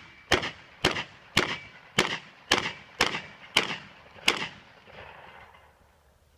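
Rapid gunfire from a shouldered long gun: eight shots at roughly two a second, each with a short echo, the last coming a little later than the rest.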